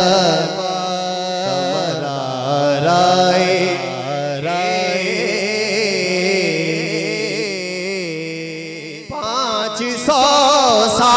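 A man singing a naat, an Urdu devotional poem in praise of the Prophet, into a microphone, in long wavering melodic lines over a steady low drone. He pauses briefly about nine seconds in, then comes back louder.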